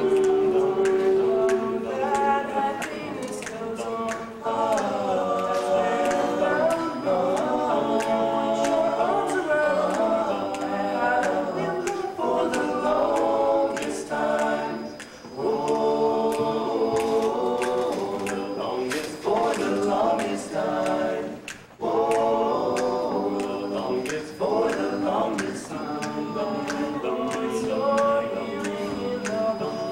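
Teenage boys' a cappella vocal ensemble singing in several parts, holding chords and moving between them, with brief breaks between phrases.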